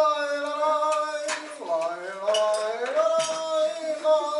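A voice singing a slow melody in long held notes that glide from one pitch to the next, with a few light clicks about midway.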